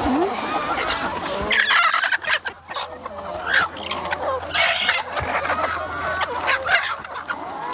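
A flock of free-range chickens clucking continuously, with a rooster crowing.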